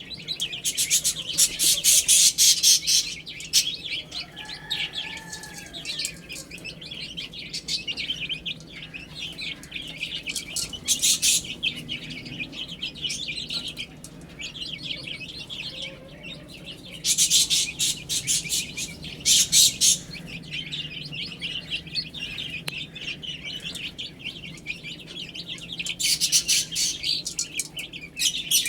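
A group of baby chicks chirping continuously in a dense, rapid chatter of high peeps, swelling into louder bursts every several seconds.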